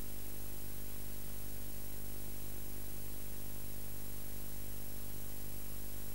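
Steady electrical hum with an even hiss over it, unchanging throughout, with no other sound.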